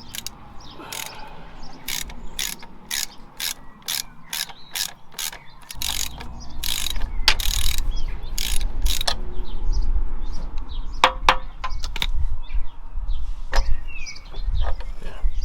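Ratchet wrench clicking in steady strokes, about two clicks a second, undoing bolts on a tractor's four-wheel-drive shaft, then a few scattered clicks. A low rumble comes in about halfway through.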